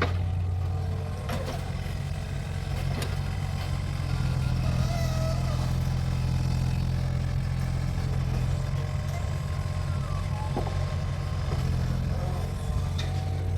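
Mini excavator's engine running steadily under work, with a few sharp knocks scattered through it.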